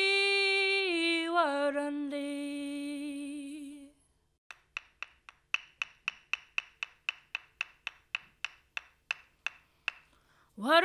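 A woman's voice sings one long unaccompanied note that steps down in pitch and fades out, then a pair of wooden clapsticks is struck in a quick run of about two dozen clicks, about five a second at its fastest and slowing toward the end; her singing starts again just at the end.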